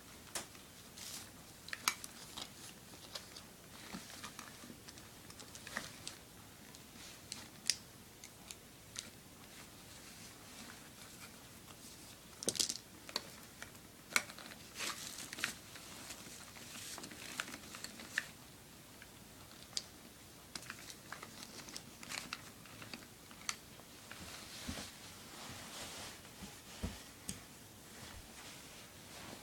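Irregular light clicks, taps and rustling: small toy tools and their bag being handled.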